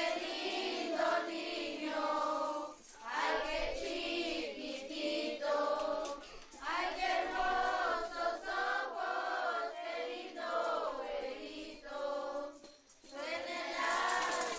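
A group of children singing a posada song together, in phrases broken by short pauses for breath.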